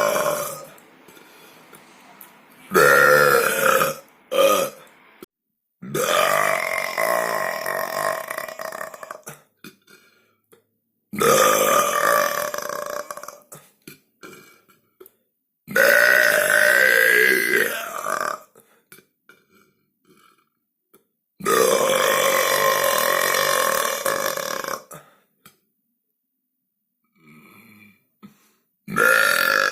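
A series of human belches, about six in all, most of them long and drawn out at two to four seconds each, with short silent pauses between them.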